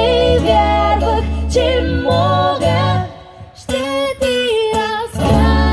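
Live song: female voices singing a held melody over a low, steady bass. The music dips briefly about three seconds in, then the voices come back.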